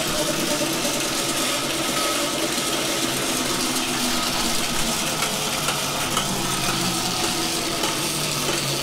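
Electric bobber's QS 138 90H motor, driven by a 72 V Votol EM260 controller, spinning in first gear with a steady whine and mechanical whirring. Its pitch begins to fall near the end.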